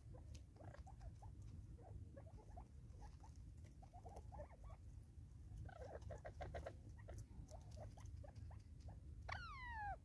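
Natal spurfowl feeding, giving soft, short clucking notes scattered through, with a quick run of about eight notes just past the middle. Near the end comes one louder call that slides down in pitch.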